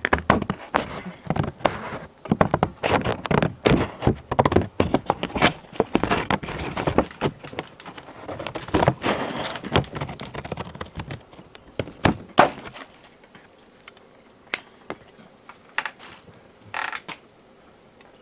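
The cardboard panels and clear plastic window of a Funko Pop box being pulled apart and handled: a dense run of crackles, taps and knocks for about twelve seconds, then only a few single taps and a brief rustle.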